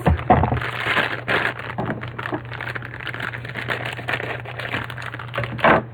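Packaging being handled: a small cardboard toy box opened and the plastic bag inside crinkled, in irregular rustles and crackles, with a low thud right at the start and a louder rustle near the end.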